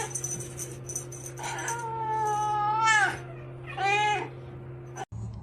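Domestic cat meowing: the end of one call at the start, a long drawn-out meow about a second and a half in, and a shorter meow about four seconds in, over a steady low hum.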